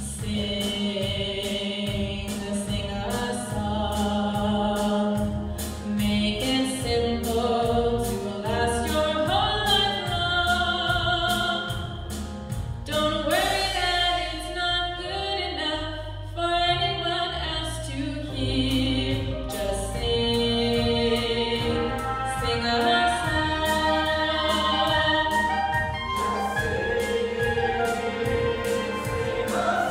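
Mixed church choir singing with a female soloist, over a band with a steady drum beat.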